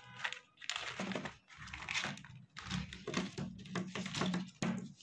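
Clear plastic marker pouch crinkling as it is opened, and plastic felt-tip markers clicking and clattering against one another as they are tipped out and spread on paper: an irregular run of rustles and light clicks.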